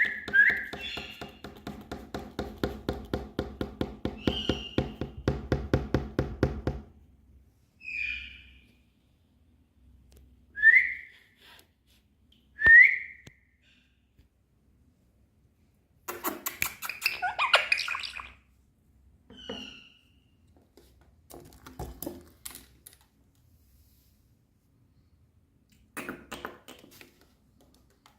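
Indian ringneck parrot making short, rising whistled calls one at a time, with a louder chattering burst about two-thirds of the way in. A rapid run of ticks, about four a second, fills the first several seconds, and there are a few scattered taps near the end.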